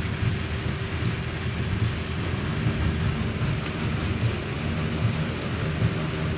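A car's engine running and its tyres on a flooded, wet road, heard from inside the cabin as a steady low rumble with an even hiss of water. A faint high tick repeats about every 0.8 seconds.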